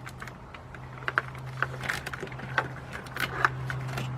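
Irregular small clicks and taps of a screwdriver prying plastic electrical connector plugs off fuel injectors, over a steady low hum.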